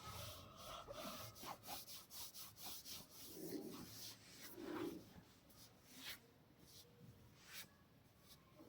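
Hands rubbing and working through oiled hair and scalp in a head massage: faint, irregular scratchy friction with scattered crackling ticks, busier in the first half and sparser later.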